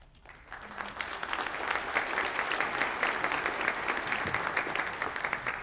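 Audience applauding, swelling over the first second or so and starting to fade near the end.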